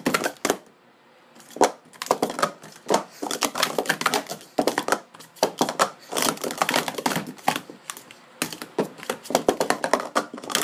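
Hard plastic sport-stacking cups (WilliamPoly Pro Series 2 and Speed Stacks) clattering in rapid clicks and clacks on a stacking mat as they are stacked up into pyramids and swept back down, with a short pause about a second in.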